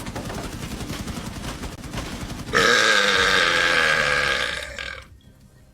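A man burping loudly: first a long, croaking burp with rapid pulses, then, about two and a half seconds in, a louder, higher-pitched, drawn-out burp that lasts about two and a half seconds.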